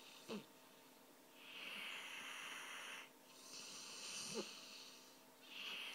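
Sleeping dog snoring: long, wheezy, hissing breaths in a slow rhythm, with a short sharp snort near the start and another about four seconds in.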